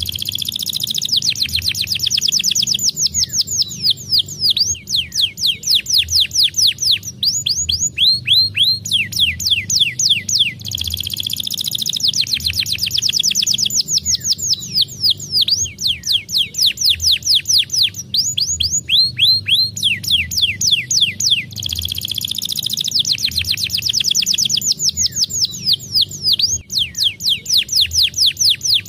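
Domestic canary singing a fast, tightly rolled song: long runs of rapid high falling notes with brief breaks between phrases.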